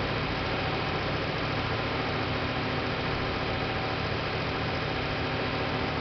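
Mercedes-Benz Actros 4144's V8 diesel engine running steadily while it powers the hydraulics of the Putzmeister 46 m boom pump as the boom unfolds, with a steady hiss over it.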